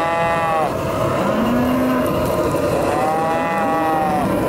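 A calf bawling while it is branded with a hot iron: two long, loud, rising-and-falling bawls, the first ending just under a second in and the second starting near the three-second mark, with lower moos from other cattle in between.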